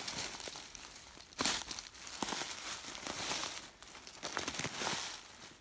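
Footsteps crunching through dry dead leaf litter, uneven steps with the loudest crunch about a second and a half in.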